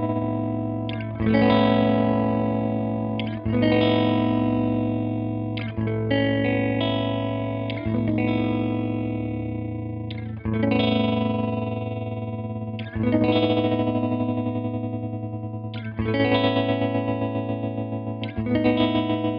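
Electric guitar chords through an EarthQuaker Devices Hummingbird Repeat Percussions tremolo set to its fastest rate. Eight chords are struck a couple of seconds apart and each is left to ring, chopped into a very fast pulsing as it fades.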